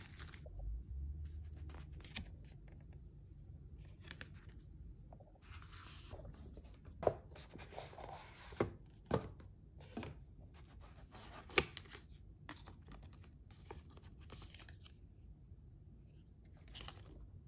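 Kraft paper wrapping rustled and torn open by hand, then a boxed plastic soap dish handled, with a few sharp knocks in the middle.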